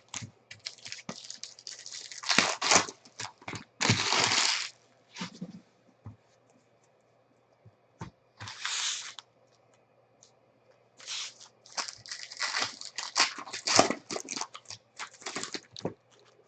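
Foil trading-card pack wrappers crinkling and tearing, and cards being handled, in irregular bursts, with a lull of a few seconds midway.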